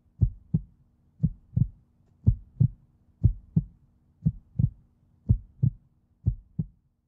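Heartbeat sound effect: a slow, steady lub-dub of paired low thumps, about one beat a second, over a faint steady hum.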